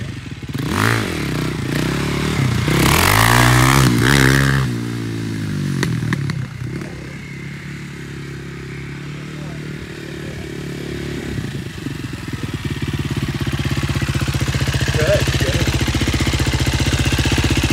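KTM 450 SX quad's single-cylinder four-stroke engine revving up and down in quick swings for the first few seconds, then running more evenly. Over the last few seconds it gets louder and settles into a steady idle close by.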